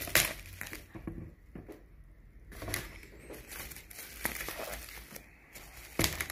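Plastic bubble wrap crinkling as it is cut with a knife and pulled open off a package, a string of irregular crackles.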